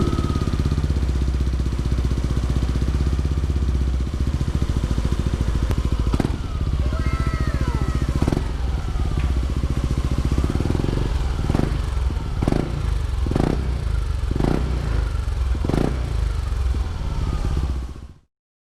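Yamaha Aerox 155 scooter's single-cylinder four-stroke engine running through an Exos R6 aftermarket exhaust, idling steadily, then given a series of short throttle blips about once a second in the second half. The sound cuts off abruptly just before the end.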